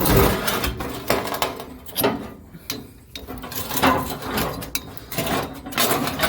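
Irregular clunks and scraping as a pickup truck's fuel tank is slid out from under the truck.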